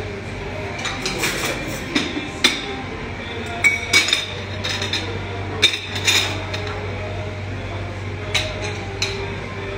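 A blue-and-gold macaw eating a piece of künefe: irregular sharp clicks and crunches from its beak, with an occasional clink and a steady low hum underneath.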